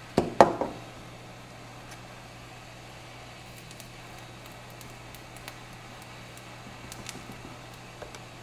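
Hot-air rework station blowing steadily, a low even hum with air hiss, as hot air is played over a flight controller's processor pins to melt away a solder bridge. Two sharp knocks come close together near the start, and a few faint ticks follow later.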